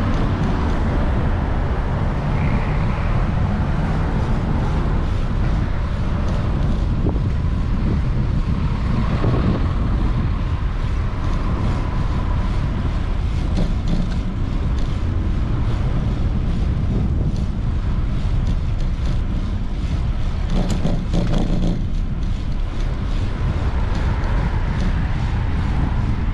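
City street traffic, with cars passing a moving bicycle and a steady low rumble throughout. Brief louder passes come about nine and twenty-one seconds in.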